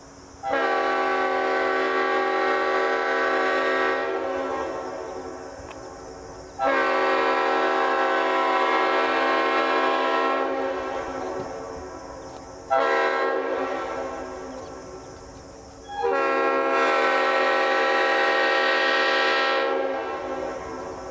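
Leslie five-chime locomotive air horn sounding a chord in four blasts, long, long, short, long: the grade-crossing signal pattern. Each blast trails off slowly after it stops.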